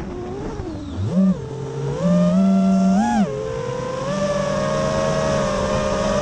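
Diatone R568 FPV quadcopter's brushless motors and propellers whining, the pitch falling as the throttle is cut at the start, then surging up in short throttle punches about a second and two to three seconds in, before settling into a steady whine from about four seconds.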